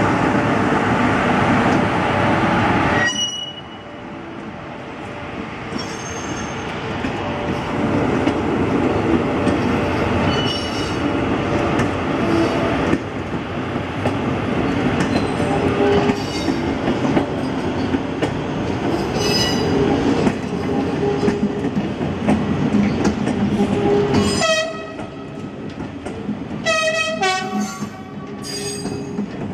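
Suburban passenger train running on the rails with a continuous rumble. Near the end come several short pitched horn sounds.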